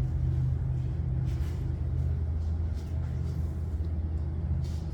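Steady low machine hum, unchanging throughout, with a few faint light ticks.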